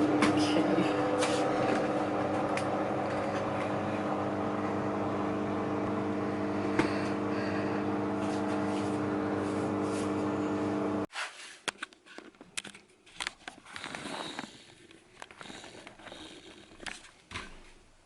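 Washing machine running a delicates cycle: a steady hum with several pitches that cuts off suddenly about eleven seconds in, followed by quieter, irregular knocks and swishes.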